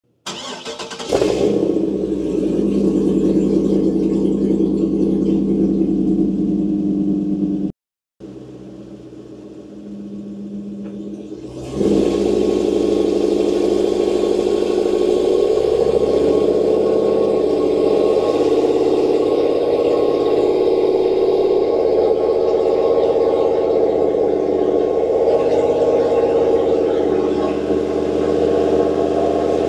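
A 6.2 L LS3 V8 with a hot cam in a Humvee, heard from inside the cab. It runs steadily from about a second in. After a short break near the middle it pulls the truck along, its pitch rising and falling as it accelerates.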